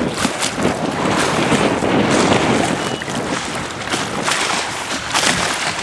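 Wind buffeting the microphone, a rushing noise that swells in gusts about two seconds in and again near the end.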